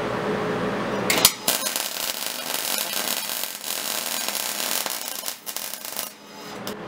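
MIG welder arc crackling steadily as a bead is run across the back of a steel railroad-spike piece on a horseshoe. The crackle starts about a second in and stops shortly before the end.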